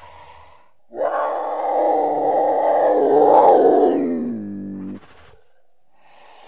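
Cougar giving one long, loud yowl of about four seconds, its pitch dropping as it trails off. A faint breathy sound comes just before it and another near the end.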